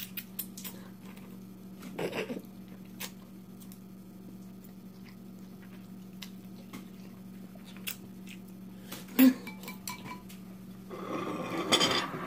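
Instant ramen noodles being slurped and chewed, with small clicks of chopsticks against bowls and a sharp tap about nine seconds in, over a steady low hum.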